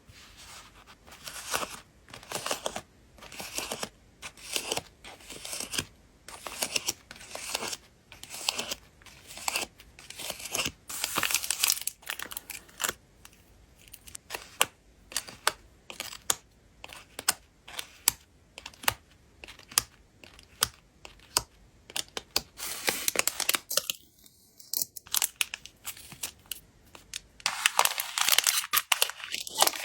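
Hands handling plastic and paper packing materials while packing photocards: a run of short crinkling and rustling bursts with light taps and clicks, with a denser stretch of crinkling near the end.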